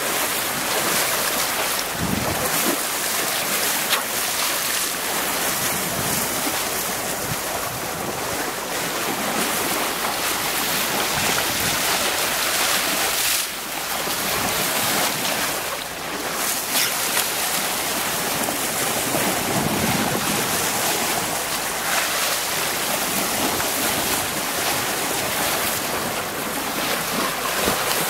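Steady rush and splash of a sailboat's bow wave breaking along the hull as it moves through open sea, mixed with wind buffeting the microphone.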